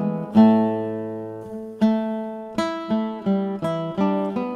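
Background music: an acoustic guitar playing chords, each struck and left to ring out, a few seconds apart or less.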